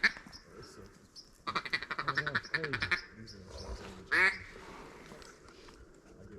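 Duck quacking: a fast run of chattering calls about one and a half to three seconds in, then one louder call about four seconds in.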